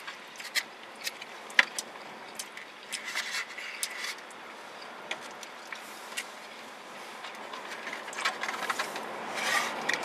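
Forks clicking and scraping against takeout food containers, with chewing, as two people eat; scattered sharp clicks, the loudest about a second and a half in.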